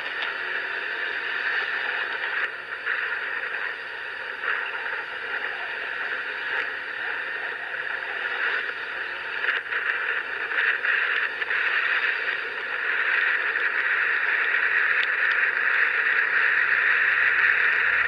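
Motorbike being ridden, its engine running under a steady rush of wind and road noise, growing louder over the last few seconds.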